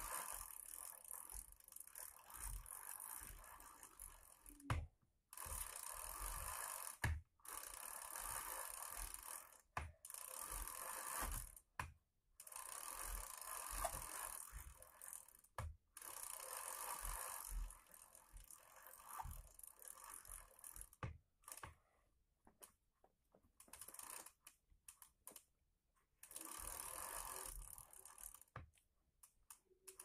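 A child's bicycle pedalled in place: the chain and rear freewheel ratchet clicking in spurts of one to three seconds with short pauses between, breaking up into scattered short clicks in the last third.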